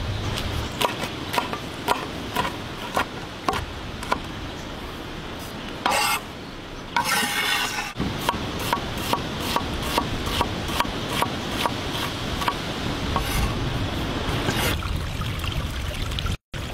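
Cleaver chopping on a wooden cutting board, a run of sharp knocks about two to three a second, with a short rushing noise near the middle. Near the end, oil sizzling in a frying pan.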